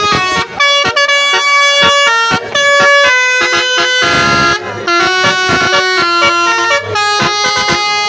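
Telolet multi-tone bus horn playing a tune of short notes that step up and down in quick succession, with a brief hiss about four seconds in.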